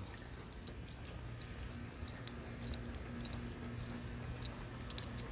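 Light ticks and clinks from a dog's chain collar and leash as the dog walks, over a steady low hum.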